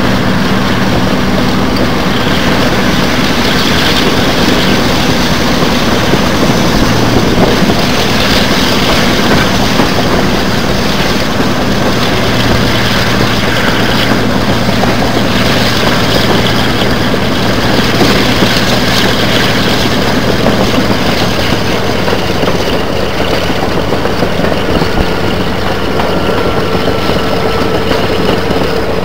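Passenger train running at speed, heard at an open coach window: a loud steady rush of wind and wheels on rail, with the low drone of the Class 42 'Warship' diesel-hydraulic locomotive's engines ahead. The drone shifts in pitch about two-thirds of the way through.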